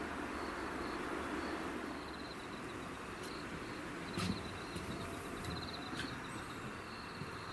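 Insects chirping in repeated pulsed trills over a steady outdoor hiss, with a few light knocks from about four seconds in.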